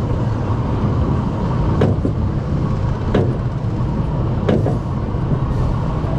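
Mine-train roller coaster climbing its chain lift hill: a steady low rumble from the lift, broken three times by a sharp clack, about one every second and a half, typical of the anti-rollback ratchet.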